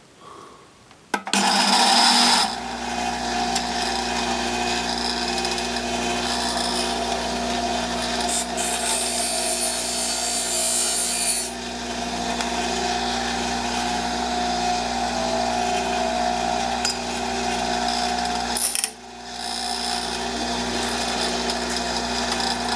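Electric grinder running and grinding the steel strip from a windshield wiper blade into a lock pick. It starts about a second in, turns harsher for a few seconds in the middle as the metal bears on the wheel, and dips briefly about three-quarters of the way through before picking up again.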